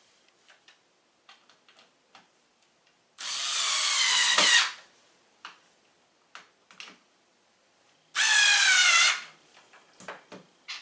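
Power drill driving screws in two runs, the first about a second and a half long, the second about a second, each whine sliding down in pitch as it slows under load. Light clicks and knocks of handling come between the runs.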